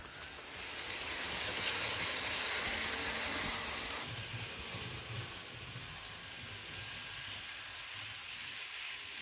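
Electric model passenger train running on its track: a steady whirring hiss of the motor and wheels on the rails. It swells about a second in, is loudest for the next few seconds as the train passes close, then settles lower and steady.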